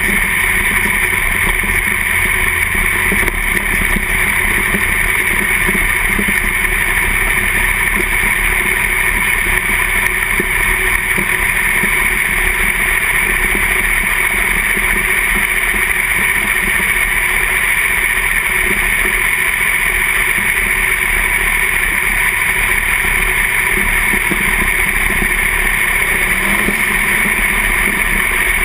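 Sprint car's V8 engine running at racing speed, heard close from on board the car; loud and steady throughout.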